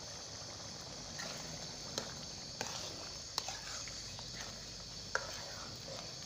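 Liver curry bubbling and sizzling in a wok-style pan, a steady hiss, with a few sharp clicks as a metal ladle stirs and knocks against the pan.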